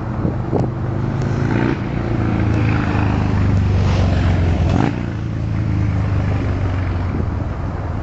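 A motor vehicle engine running with a low, steady hum that grows louder through the middle and drops off suddenly about five seconds in.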